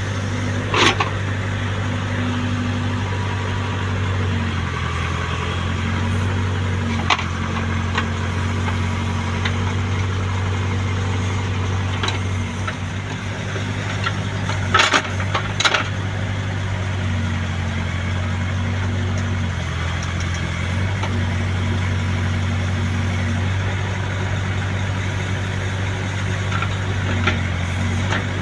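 Heavy diesel engines of a backhoe loader and waiting dump trucks running steadily at low revs, with a few sharp knocks and clanks, the loudest pair about fifteen seconds in.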